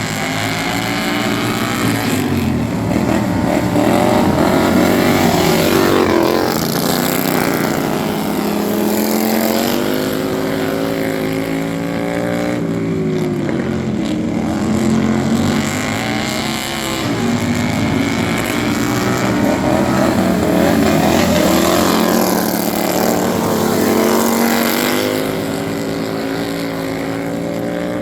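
Racing lawn mowers' small engines running hard, several at once, their pitch repeatedly rising and falling as they accelerate and back off.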